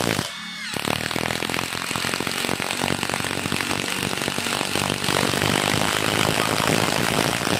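Two cordless impact drivers hammering rapidly together as they drive long hex lag screws into hardwood, with a brief dip in the hammering about half a second in.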